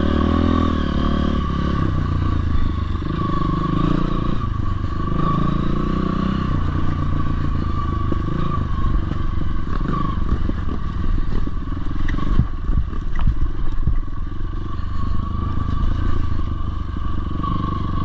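Off-road motorcycle engine running, its pitch rising and falling as it is throttled, with scattered knocks and clatter in the second half.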